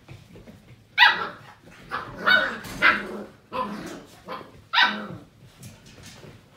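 Seven-week-old Portuguese Water Dog puppies barking while they play: about six short barks between one and five seconds in, the loudest at the first and the last.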